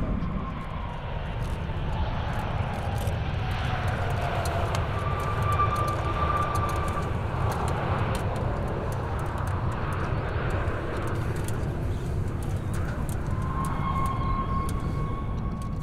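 Boeing 737 business jet's twin CFM56 turbofans running as it rolls out on the runway after touchdown, spoilers deployed: a steady jet roar with whining tones, one falling in pitch over the first few seconds.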